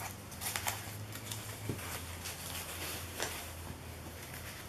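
Faint rustling of paper napkins being lifted off and handled on a sheet of paper, a few soft brushes and taps, over a steady low hum.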